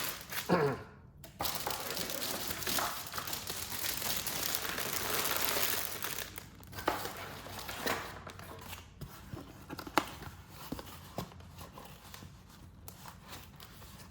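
Packaging crinkling and rustling as it is handled for about five seconds, then quieter scattered taps and handling noises.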